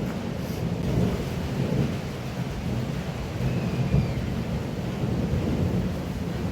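Heavy rain pouring steadily: a dense, even noise with a strong low rumble and no separate drops or strikes standing out.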